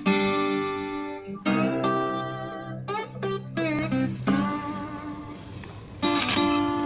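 Background music: slow plucked guitar notes, each struck sharply and left to ring out before the next.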